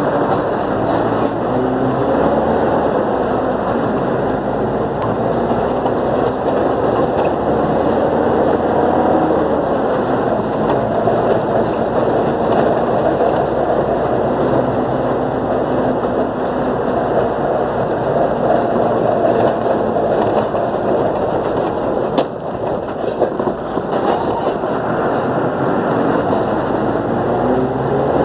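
City bus running along town streets, heard on board: a steady engine drone mixed with road noise and body rattle. The engine note rises and falls in places as the bus changes speed.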